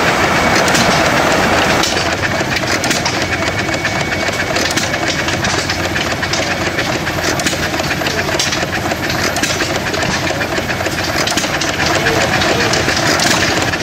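Antique stationary gas engines running, a dense, steady mechanical clatter of many small clicks.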